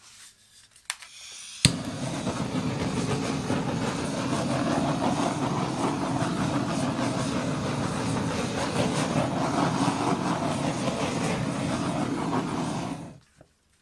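Handheld butane torch clicked alight by its igniter, then burning with a steady loud hiss for about eleven seconds before being shut off abruptly; the flame is being passed over wet acrylic paint to pop air bubbles.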